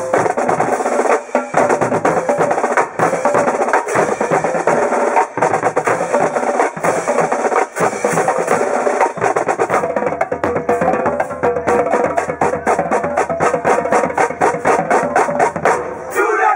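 Marching drumline playing a funk groove on snare drums, tenor drums, bass drums and crash cymbals. About ten seconds in, the strokes settle into a steadier, evenly spaced pulse.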